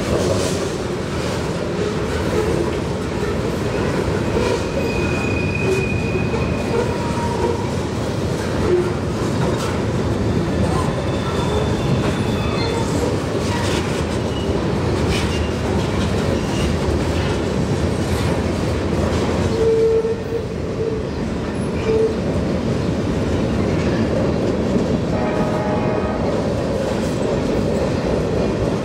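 Wheeling & Lake Erie freight train rolling by: a steady rumble of steel wheels on rail with clickety-clack over the joints, and a few short, high wheel squeals.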